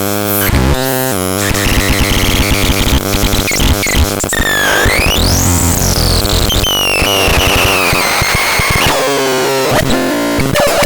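VAPETRON 403NK electronic noise synthesizer giving off harsh, chaotic buzzing tones with fast warbles. About four seconds in, a high tone sweeps up and then slides back down over the next few seconds.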